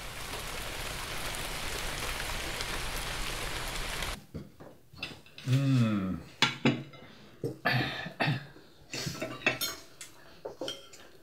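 A steady hiss that cuts off sharply about four seconds in, followed by china plates and cutlery clinking and scraping as food is served and eaten at a table.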